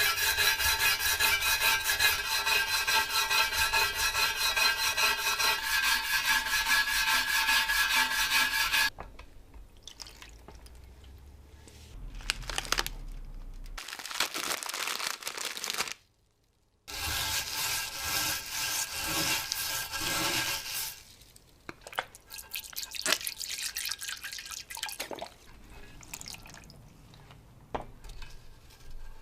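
Fast, steady rasping of rust being scraped or abraded off an old metal takoyaki plate, cutting off about nine seconds in. After a brief silence it resumes for a few seconds, then gives way to quieter scattered scrapes and clicks.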